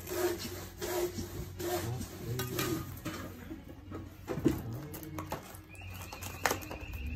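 Trowel and stones scraping and clinking on cement mortar as a stonemason lays the base of a sandstone wall, in irregular taps and scrapes. A steady high-pitched tone comes in near the end.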